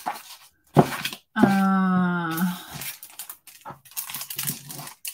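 A woman's wordless vocal sound, held for about a second and falling slightly in pitch, amid light rustling and tapping of a boxed embossing folder in its plastic packaging being handled; a sharp tap comes just before the vocal sound.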